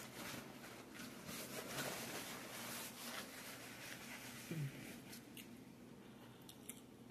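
Paper napkin rustling as it is handled and wiped for the first few seconds, then quiet chewing with the mouth closed. A short low sound comes about four and a half seconds in.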